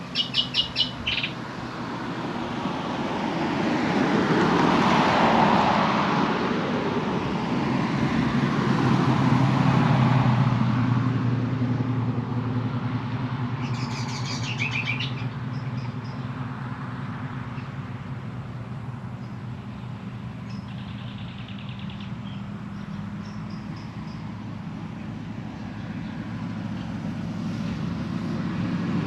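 Narrow-gauge cane-tramway diesel locomotive hauling a rake of empty raw-sugar bins: a steady engine hum with rolling noise that swells twice, around five and ten seconds in. Birds chirp briefly at the start and again about halfway.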